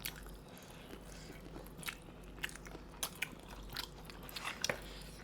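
Eating boiled crab close to the microphone: irregular sharp, wet clicks and crunches of biting, chewing and shell breaking, about eight in five seconds.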